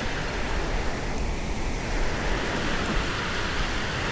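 Steady rushing noise of Gulf surf breaking on the beach, with no distinct individual sounds.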